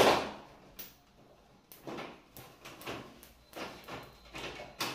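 Plastic clicks, knocks and scraping rattles from the front panel and grille of a Samsung split AC indoor unit being unclipped and handled by hand. There is a sharp knock at the start, then a string of irregular clacks.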